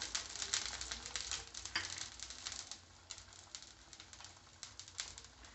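Oil sizzling and crackling around the edges of a sweet dal poli frying on a hot cast-iron dosa tawa. The quick, sharp crackles are dense at first, then thin out and fade over the last few seconds.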